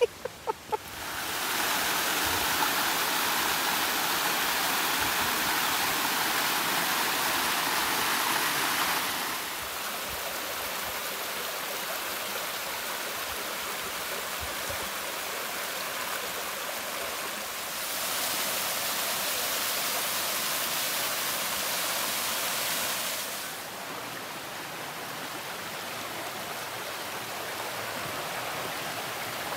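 Waterfall: a steady rush of falling water that abruptly gets louder or quieter several times.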